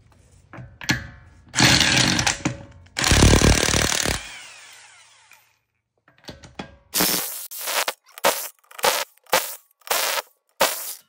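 An air impact wrench hammering at a car's lug nuts. Two runs of about a second each come first, then near the end a string of short, quick bursts as it fails to break loose the last lug nut, which is stuck.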